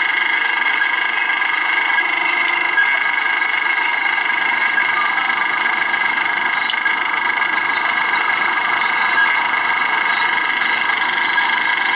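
Steady running noise of a car driving on a winding road, engine and road noise heard as an even hiss with a constant whine, without change.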